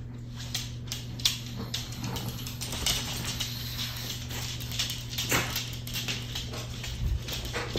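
Dogs' claws clicking and tapping irregularly on a hard floor as they walk and move about, over a steady low hum.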